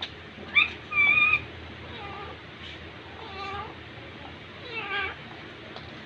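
Pet parakeets (Alexandrine and Indian ringneck) calling: a sharp call just after half a second in, then a held steady note of about half a second, followed by softer, curving calls near the middle and toward the end.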